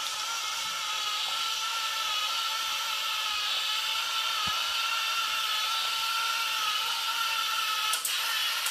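Homemade Raspberry Pi-controlled robot vacuum running as it drives across a tile floor: its small electric motors give a steady high-pitched whine with a hiss above it, broken by a brief click near the end.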